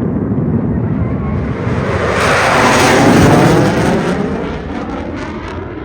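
A fighter jet passing low overhead: the jet engine noise swells to a peak about halfway through, with a rising hiss, then fades away.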